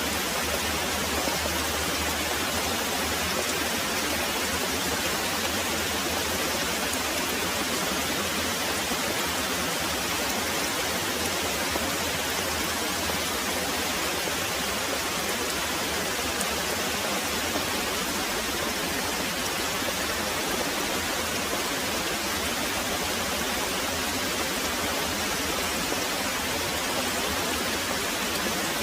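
Very heavy rain pouring steadily as an even, dense hiss, with a faint low rumble under it that fades out about halfway through.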